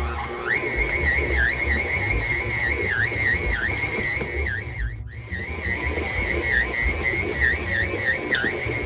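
KitchenAid stand mixer kneading stiff pasta dough with its dough hook. The motor's high whine keeps dipping in pitch and recovering as the heavy dough drags on the hook, over a low rumble, with a brief break about halfway.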